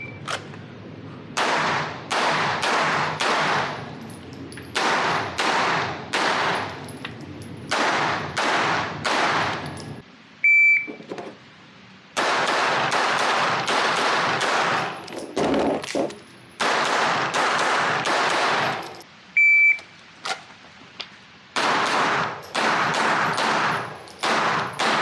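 Rapid strings of shots from a 9mm Glock 19 fitted with a compensator, fired in groups with short pauses between them. A shot timer's short high start beep comes at the start, about 11 seconds in and about 20 seconds in, each followed by a new run of shots.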